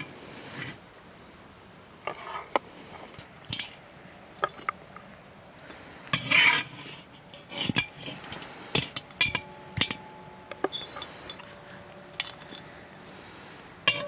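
Perforated metal skimmer scraping and clinking against the inside of a large metal cooking pot while boiled chicken pieces are lifted out, irregular knocks and scrapes with the loudest scrape about halfway through. Later strikes leave the pot ringing briefly.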